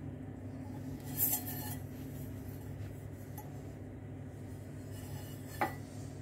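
Metal pot scraping briefly against a ceramic plate about a second in as it is lifted off a turned-out rice cake, then a single light clink near the end, over a steady low hum.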